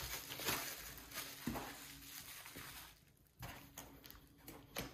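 Faint rustling and crinkling of bubble wrap and foam packing being handled, followed by a couple of light knocks in the second half.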